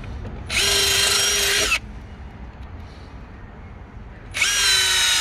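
Cordless drill-driver running in two short runs as it drives anti-split screws into the timber seat frame. Each run is a steady whine that stops suddenly: the first lasts about a second, and the second starts near the end.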